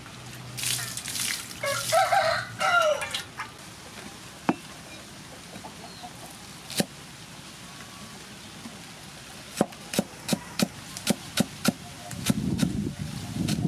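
Green onions being swished and rinsed in water, splashing, with a rooster crowing in the background about two seconds in. Then a couple of lone knocks and a quick run of sharp cleaver chops on a wooden chopping board, about three a second, as the green onions are cut. A low rumble rises near the end.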